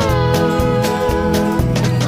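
Background music: a song with guitar, a sliding melody line and a steady beat.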